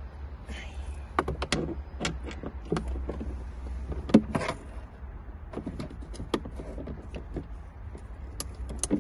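A socket ratchet turning a battery hold-down bolt. It gives irregular metallic clicks and knocks, a few each second, over a steady low hum.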